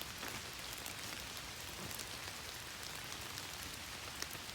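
Steady rain, with many sharp little drop ticks through it.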